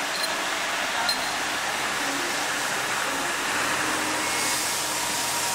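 Mobile crane's engine running steadily as it hoists a sailboat mast, an even mechanical noise with two light clicks in the first second or so.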